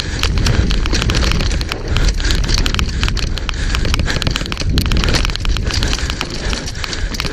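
Downhill mountain bike riding fast over a rough dirt and rock trail: wind buffeting the bike-mounted camera's microphone with a heavy rumble, under a constant rapid clatter and crackle of the tyres, chain and frame over the rough ground.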